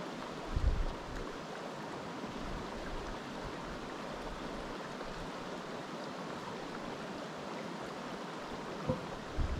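Steady rushing of a stream's flowing water, with a brief low bump on the microphone about half a second in.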